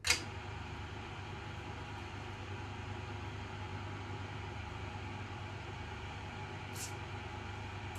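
Electric motor of a lubricant friction-wear test machine switched on with a click, then running steadily with a low hum. Near the end comes one brief hiss of an aerosol lubricant spray.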